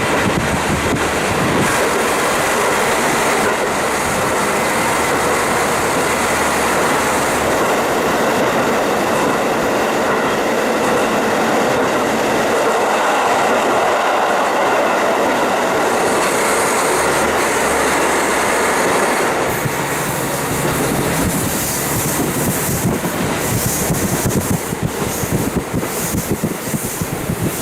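A KiHa 40 diesel railcar running along the line, its engine and wheel-on-rail noise heard through a fully open window with rushing air. About 20 seconds in the sound changes, and near the end the wheels clatter unevenly over the track.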